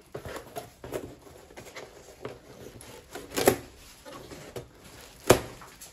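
Plastic packing straps on a cardboard carton being cut with a knife. Two sharp, loud snaps, one about halfway through and one near the end, come amid small clicks and rustling of the plastic strapping as it is handled.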